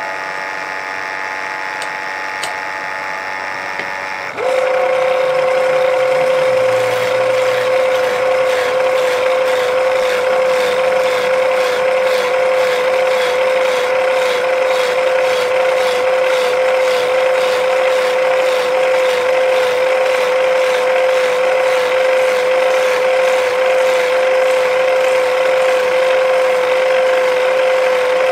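Steady machine hum at first. About four seconds in it turns suddenly louder: a wood lathe runs with a steady whine while a hand gouge cuts the spinning wooden blank with a continuous rough scraping.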